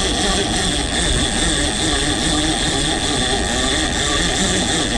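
Big-game lever-drag fishing reel whirring steadily under a hooked fish, with a constant high whine.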